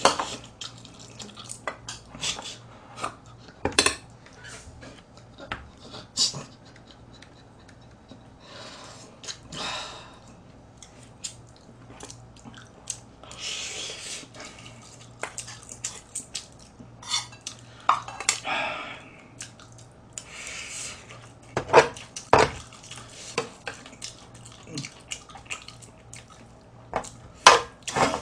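Metal spoon and chopsticks clinking and scraping against a thin aluminium pot and bowls during eating, in scattered sharp clicks with a couple of louder knocks near the end, and close-miked chewing and mouth noises in between.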